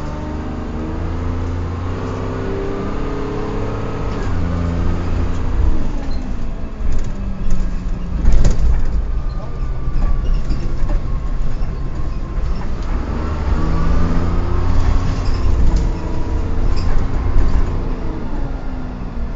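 Dennis Dart bus engine and drivetrain running, the note rising and falling in pitch several times as the bus pulls away and changes gear, with an odd whining noise from the gears riding above it. A sharp knock about eight seconds in.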